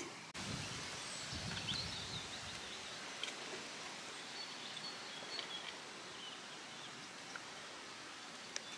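Spring woodland ambience: a steady hiss with a few faint, short bird chirps, and light rustling in the first couple of seconds.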